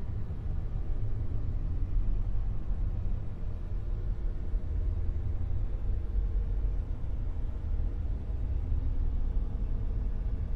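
Dark noise-wave sound effect: a steady, deep rumbling noise drone, heaviest in the low end, with a faint hum running through it.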